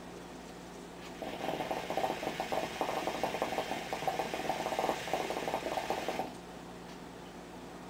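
Hookah water bubbling rapidly in the base as a long draw is pulled through the hose. It starts about a second in and stops after about five seconds.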